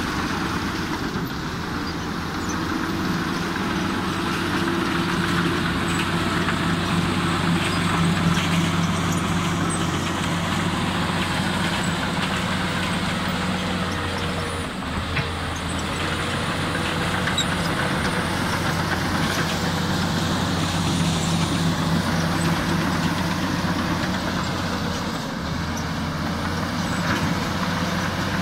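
Komatsu D85E-SS crawler bulldozer's diesel engine running steadily under load while the dozer travels and pushes loose rock and soil with its blade, with track and material noise over the engine drone. The sound changes briefly about halfway through.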